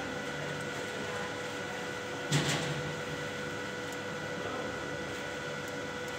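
Steady electrical hum with faint high whine tones from a powered control panel, with one short knock about two and a half seconds in.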